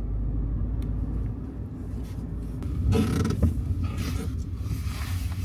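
Steady low rumble of a Suzuki Jimny rolling along, heard from inside the cabin, with creaks and a brief louder creaking rustle about three seconds in.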